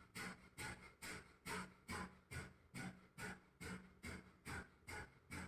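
A woman's forceful breath expulsions of kapal shuddhi kriya (kapalbhati-style breathing), a short sharp puff a little more than twice a second at an even pace.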